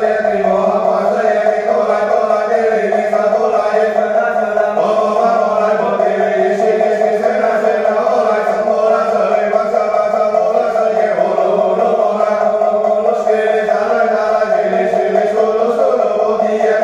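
Buddhist chanting: voices reciting a prayer text in a steady, unbroken monotone drone.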